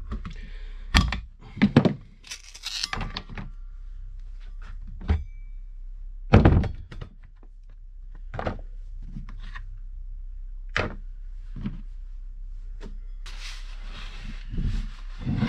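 Irregular knocks and thunks of metal parts and tools being handled and set down while the partly dismantled trench rammer is worked on, with a few short stretches of scraping and a low steady hum underneath.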